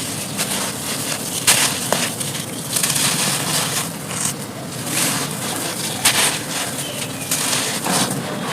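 Dry charcoal pieces being crushed and crumbled, a continuous crunching and crackling with a few sharper snaps, one about a second and a half in and another about six seconds in.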